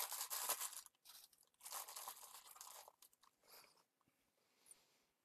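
Crinkling and crackling of plastic packaging, a small clear plastic box and its bag, being handled and closed by hand, in several short bursts that fade out about three and a half seconds in.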